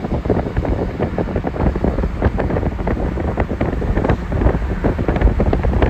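Wind buffeting the microphone with rumbling road noise from a moving car, a steady low rush broken by constant crackles.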